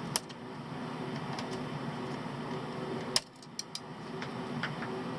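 Hand disassembly of a multimeter: a sharp click just after the start and another about three seconds in, followed by a few light ticks, over a steady background hum.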